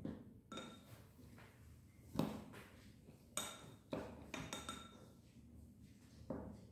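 Metal muddler pressing and knocking against the bottom of a glass as it crushes chopped strawberries and lemon: several irregular knocks, some with a short glassy clink.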